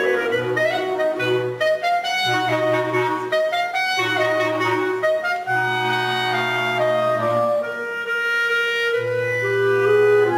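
Clarinet ensemble, including a bass clarinet, playing a piece together live. Several clarinet lines move in steps over low bass clarinet notes that break off and come back a few times.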